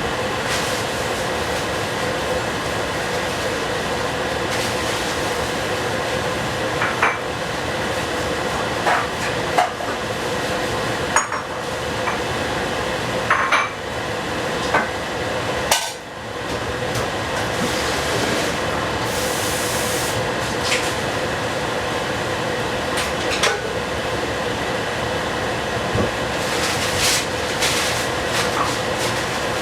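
Rice and vegetables cooking in a covered pan: a steady hiss with a steady hum underneath, broken by about a dozen short metal clinks and knocks.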